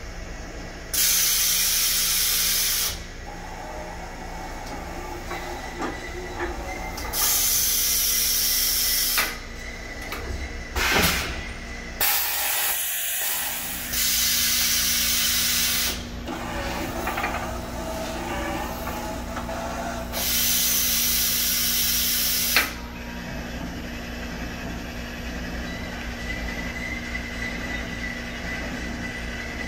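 Haas EC-630 horizontal machining center's tool changer area: several loud bursts of compressed-air hiss, each about two seconds long, with a few clicks and knocks of the mechanism between them, over the machine's steady hum.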